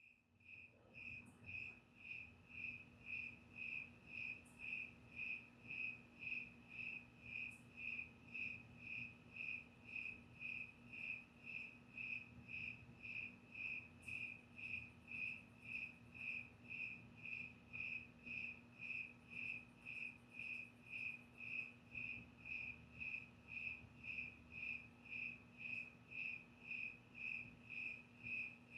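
Cricket chirping at night: short high chirps repeating at a very even rate, a little under two a second, over a faint steady low hum.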